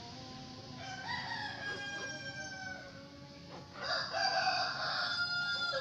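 Roosters crowing: a fainter, long drawn-out crow about a second in, then a louder crow from about four seconds in.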